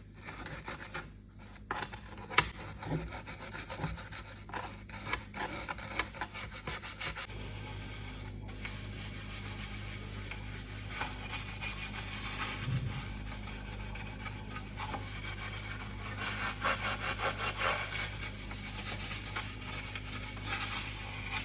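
Scrubbing and rubbing strokes as a washing machine is cleaned, with a quicker run of strokes near the end. A steady low hum comes in about a third of the way through.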